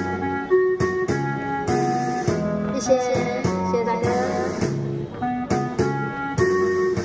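Instrumental break of a karaoke backing track: a wavering melody line over plucked, guitar-like notes and a regular drum beat.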